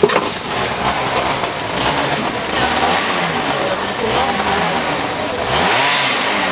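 Moped engines running, with indistinct voices behind; a sharp knock right at the start.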